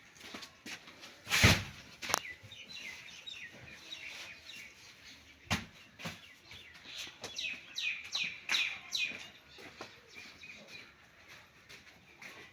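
Small birds chirping, many quick falling chirps repeated over and over, busiest from about three to nine seconds in. Two loud sharp knocks come about one and a half and five and a half seconds in.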